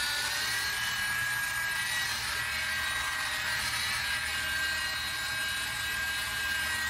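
Electric polisher with a wool pad running steadily, buffing rubbing compound into a boat hull. It is a continuous motor whine whose pitch drifts slightly as the pad loads against the surface.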